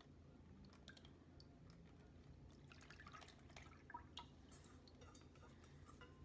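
Faint dripping and trickling of lye solution poured from a stainless steel bowl into melted coconut oil, with scattered small clicks and taps.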